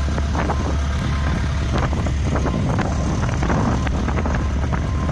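Travel hoist's engine running steadily with a low drone, wind buffeting the microphone, and scattered short clicks and knocks.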